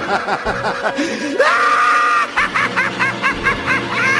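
A high-pitched voice laughing in rapid wavering pulses. About a second and a half in it jumps higher into a held shriek, then goes on in quick shrieking cackles.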